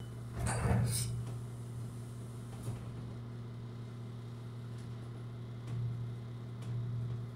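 Steady low hum inside a standing train carriage, with a brief louder clatter about half a second in and a few faint knocks later.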